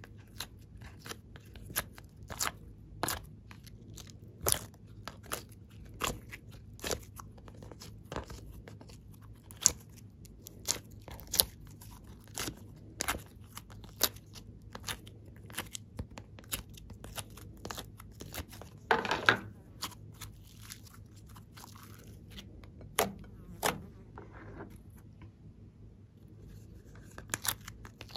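Irregular sharp clicks and crackles of a thin plastic mould tray flexing as piped clay shapes are pried out of it, with a longer crackling stretch about two-thirds of the way through.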